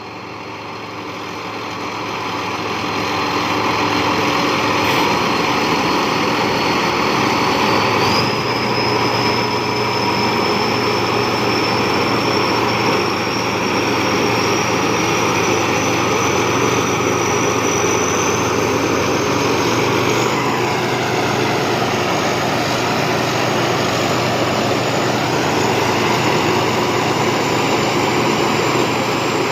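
Thai Seng Yont rice combine harvester running under power. It gets louder over the first few seconds and then holds steady, with a high whine that climbs slowly in pitch throughout.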